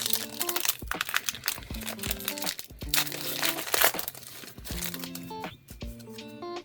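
Foil booster-pack wrapper crinkling as it is torn open, busiest in the first four seconds and sparser after, over background music with a steady beat.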